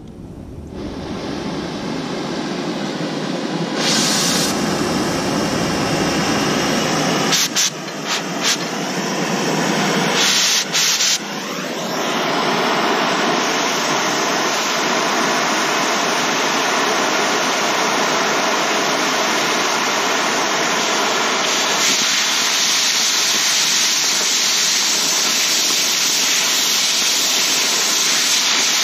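Oxy-fuel cutting torch flame running with a loud steady hiss as it heats and cuts through the old hitch bolts; it grows louder over the first few seconds and dips briefly a few times about eight to eleven seconds in.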